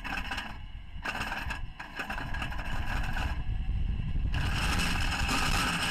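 Lark streamliner running along a paved road, heard through its onboard camera: road and wind noise that grows steadily louder as it picks up speed.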